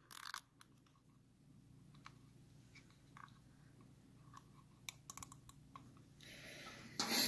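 Small clicks and rustling of fingers working the ignition wires and a cable tie being snugged around them. There is a quick cluster of sharp clicks about five seconds in and a louder rasp near the end.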